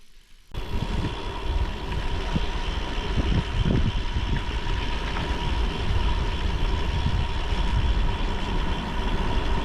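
Steady rush of wind on the microphone over tyre rumble from a bicycle rolling on a gravel road, starting abruptly about half a second in.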